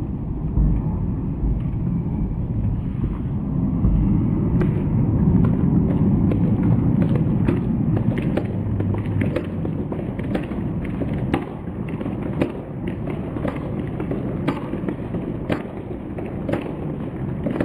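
Baseball stadium crowd in an uproar: a dense swell of voices that is loudest several seconds in and then eases off, with many scattered sharp claps and knocks throughout.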